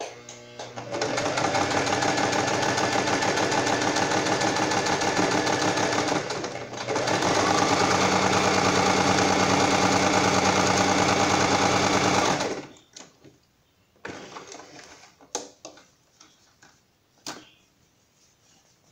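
Domestic electric sewing machine stitching a seam through cotton fabric. It starts up slowly under a second in and runs steadily. It eases off briefly about six seconds in, then runs a little louder until it stops near twelve seconds. After that, fabric is handled with a few light clicks.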